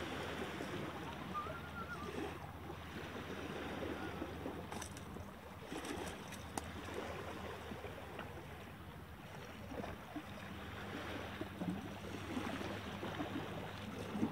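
Small waves lapping at a rocky shoreline with light wind, over a faint steady low hum, and a few faint clicks about five to seven seconds in.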